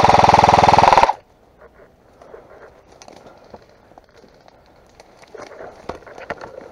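Airsoft electric rifle firing a full-auto burst, a fast even rattle of about twenty shots a second that stops suddenly about a second in. Faint scattered clicks and rustling follow.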